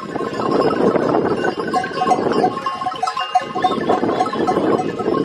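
A flock of sheep and goats bleating, many calls overlapping in a continuous chorus.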